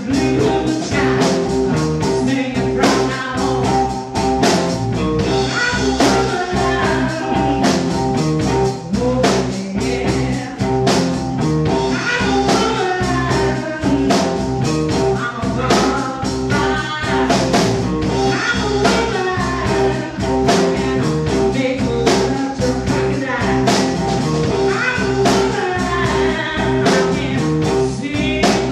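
A blues band playing with singing over a steady drum beat.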